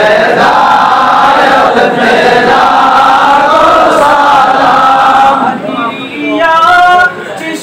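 A crowd of men chanting together in Islamic devotional chant. About five and a half seconds in, the massed voices drop away and one male voice carries the melodic line alone.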